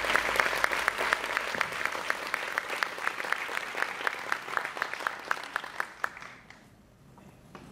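Audience applauding. The clapping thins out and dies away about six and a half seconds in.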